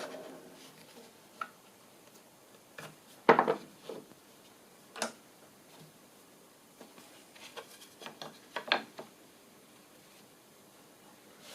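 A power tool running down and fading out at the start, then scattered knocks and clatters of tools and timber being handled, the loudest a few seconds in and a quicker group of them near the end.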